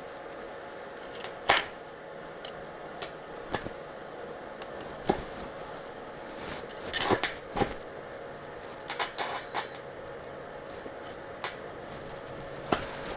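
Irregular sharp metallic knocks and clicks, about a dozen, some in quick clusters, from handling a steel trailer jockey wheel and tools in a vise, over a steady workshop hum.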